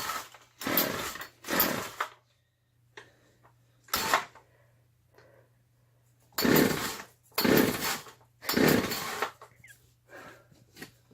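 A chainsaw being pull-started again and again, about seven short cranks of the recoil starter in bursts with pauses between. The engine turns over briefly on each pull but does not catch and run.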